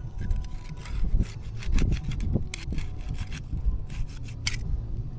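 Knife blade scraping and clicking against the shell of a large chocolate clam as it is worked in to cut the adductor muscle and pry the clam open, in a run of irregular scrapes and clicks.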